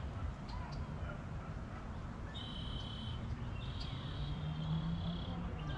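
Outdoor ambience by a pond: a steady low rumble with faint bird chirps. A high, steady call starts about two seconds in and runs until near the end, with one short break.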